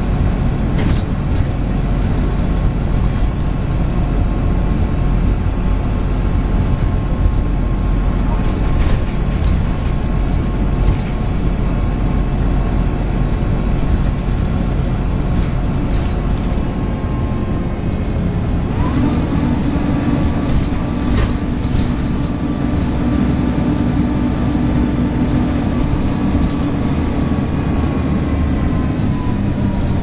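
Alexander Dennis Enviro 300 single-deck bus heard from inside while it drives, its diesel engine and drivetrain running with a whining, vacuum-cleaner-like note, known as hoovering, over a steady rumble, with scattered rattles from the body. About two-thirds of the way through, a higher whine rises and then slowly falls as a deeper engine note builds.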